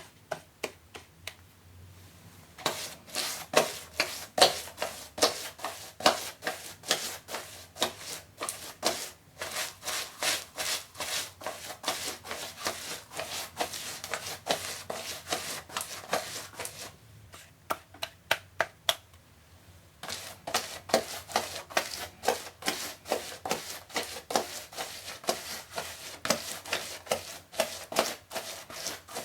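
Rapid rubbing strokes on a surface, several a second, in two long runs separated by a pause of about three seconds.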